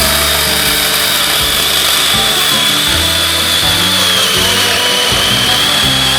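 Background music: low notes changing every half second or so under a high held tone that slowly sinks.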